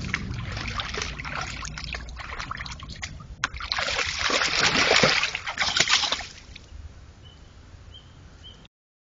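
White-tailed deer wading in a shallow pond, its legs splashing and sloshing through the water with small clicks and drips. The splashing is loudest for a couple of seconds midway, then dies down.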